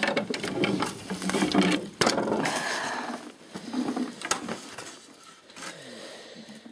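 Clattering and knocking of hand tools being shifted about, with a sharp knock about two seconds in; the rattling dies down near the end.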